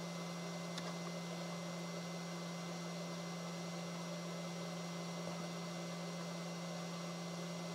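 Steady electrical hum over an even fan-like hiss from running bench equipment, unchanging throughout, with a faint tick just under a second in.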